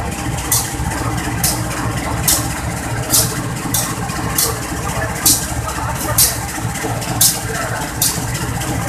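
Diesel locomotive engine idling steadily, with short hissing bursts high in pitch about once a second.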